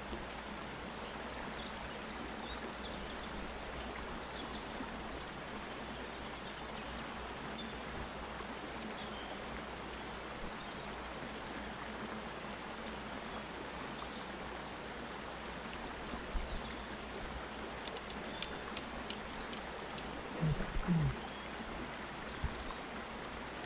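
River water running steadily, with a few short low thumps about two-thirds of the way through and near the end.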